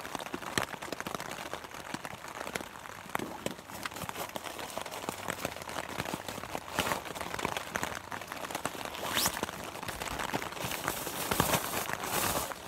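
Rustling and crinkling of a plastic bag and tent gear being handled, with irregular small ticks and crackles, growing louder in stretches near the middle and towards the end.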